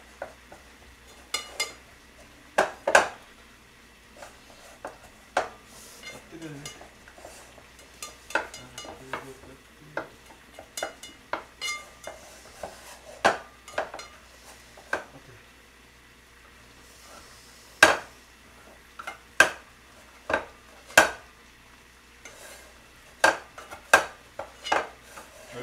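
A spoon scraping and tapping against a pot as leftover cooked rice is scooped out into a bowl: irregular sharp clicks and knocks, several of them loud.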